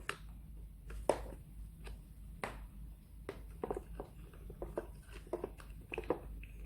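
Hands handling a small plastic doll, making light irregular clicks, taps and rustles.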